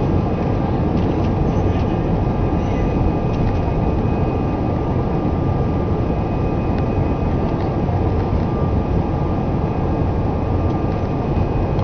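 Airbus A319-111's CFM56 jet engines at take-off thrust during the take-off roll, heard inside the cabin: a loud, steady rush with a few steady whining tones over it.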